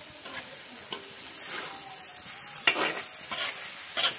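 Food sizzling in a large black wok while a metal spatula stirs it, scraping against the pan several times, the loudest scrape about two and a half seconds in.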